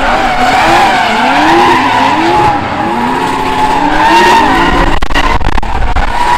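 Drift car sliding with its tyres squealing steadily while the engine revs up and down again and again, with a few sharp cracks near the end.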